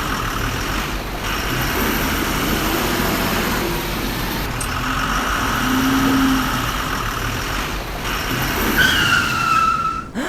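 Heavy vehicle engine running steadily, with a whine that falls slightly in pitch near the end.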